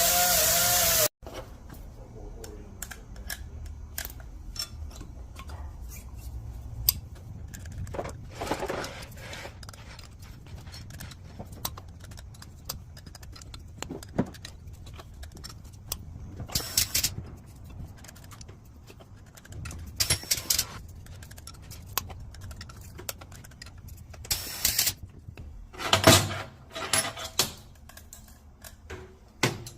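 Small steel parts clinking and clicking as a 318 Dodge cylinder head is reassembled by hand: scattered light metal ticks with a few louder clanks, after a loud passage that cuts off abruptly about a second in.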